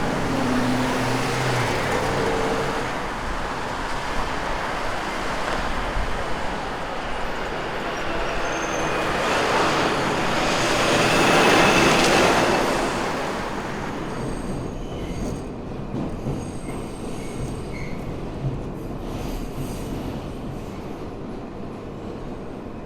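A train passing: a rumble that swells to its loudest about 11 seconds in and then fades, with faint high squeals in the later part.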